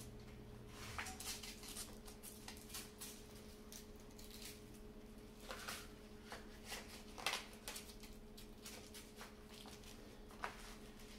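Soft rustles and scattered short scrapes and clicks of elastic wrist wraps and a lifting belt being handled and wrapped, over a faint steady hum.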